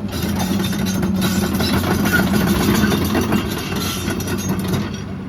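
The XCMG XE210CU excavator's Cummins diesel engine running steadily at idle, a constant low hum.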